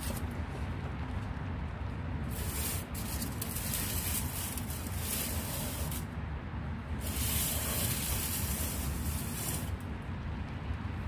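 Steady hiss of rain over a low rumble, the hiss growing louder for a stretch about two seconds in and again from about seven to nine and a half seconds.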